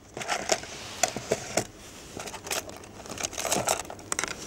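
Hands rummaging through a small plastic tackle tray, small pieces of fishing tackle clicking and rattling against the plastic, with rustling as items are picked out.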